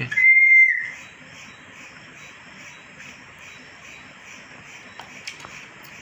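Indian ringneck parrot giving one steady, clear whistle just under a second long near the start, dipping slightly in pitch as it ends.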